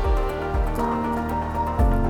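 Background music: held synth-like chord tones over low bass thumps, changing chord near the end.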